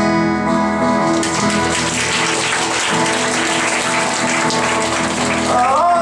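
Acoustic guitars ring out on a held chord. About a second in, audience applause rises and goes on under the fading chord. Near the end a voice comes in with a rising and falling phrase.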